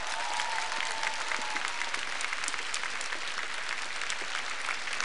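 Large arena audience applauding after a song, a dense steady clapping, with a faint thin held tone fading out within the first two seconds.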